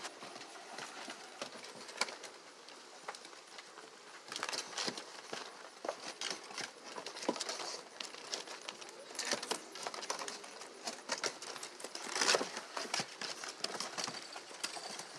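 A litter of American Pit Bull Terrier puppies scuffling and scrabbling on wooden deck boards as they tug at a cloth, with many irregular quick clicks of claws and paws, louder in a burst about twelve seconds in.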